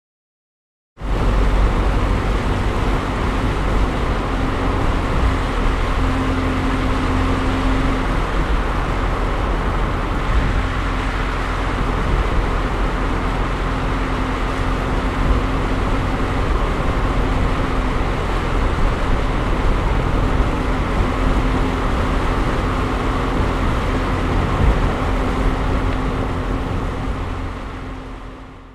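Steady jet airliner cabin noise: engine and airflow rushing with a faint steady hum underneath. It starts about a second in and fades out near the end.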